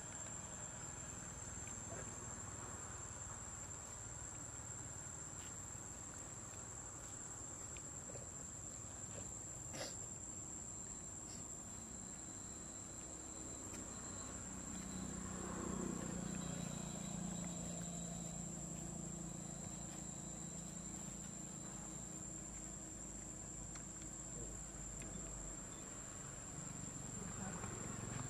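Steady, high-pitched insect buzz held unbroken throughout, over low outdoor background noise; a low hum swells and fades about halfway through.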